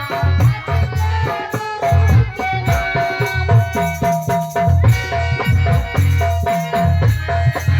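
Instrumental music with a steady beat and a melody line.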